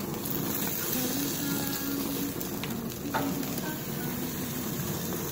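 Ribeye steaks sizzling on a gas grill over flaring burner flames, a steady hiss of fat and juices hitting the heat. A single short metallic click about three seconds in, from the steel tongs against the grate.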